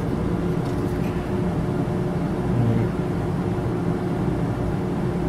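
Steady low background hum with faint steady tones, no distinct clicks or snaps.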